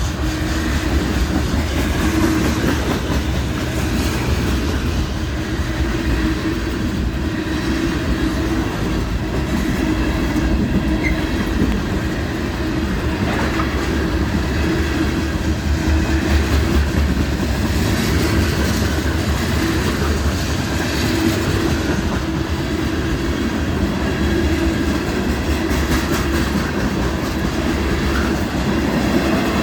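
Train cars rolling past close by, picking up speed: a steady low rumble with wheels clacking over the rail joints.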